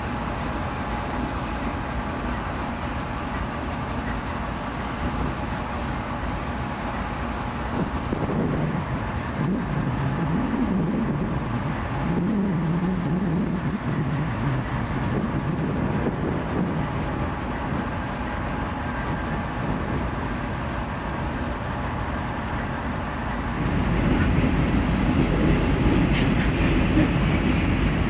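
Canadian National diesel-electric locomotives running with a steady rumble and a faint whine. About eight seconds in, the engine note rises and wavers for several seconds. Near the end, a louder diesel rumble sets in as a locomotive comes along the tracks.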